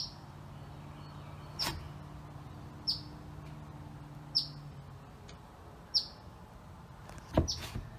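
A bird chirping over and over: about six short, high, falling chirps, one every second and a half or so. Under them a low steady hum stops about five seconds in, and there are two sharp knocks, the louder one near the end.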